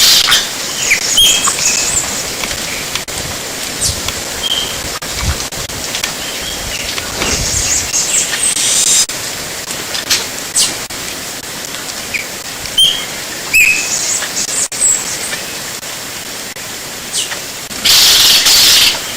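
Small birds chirping and calling now and then over a steady background hiss, with a loud burst of high hiss lasting about a second near the end.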